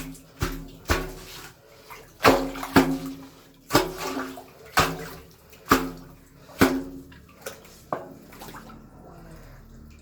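Water splashing in a sewer manhole during drain cleaning: about ten sharp, uneven slaps and splashes, then a softer steady sloshing near the end.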